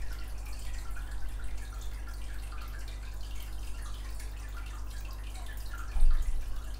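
Quiet room tone: a low steady hum with faint, irregular light ticks, and a brief low knock about six seconds in.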